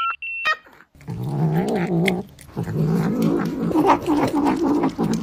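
A few short electronic beeps, then from about a second in a kitten's long, wavering, low-pitched cry as it eats watermelon, with a brief break about halfway through.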